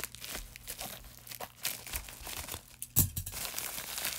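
Plastic poly mailer and the tissue paper inside it rustling and crinkling as they are handled and pulled open by hand, with one sharp snap about three seconds in.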